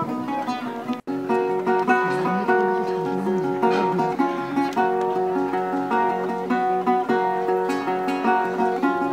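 Background music of acoustic guitar, plucked notes and strummed chords, cutting out for an instant about a second in.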